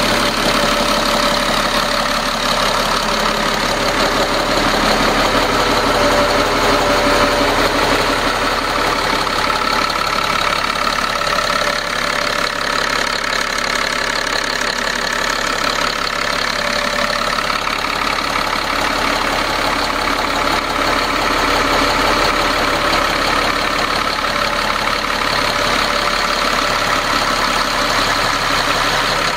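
A pair of Caterpillar marine diesel engines idling steadily, heard up close inside a boat's engine room.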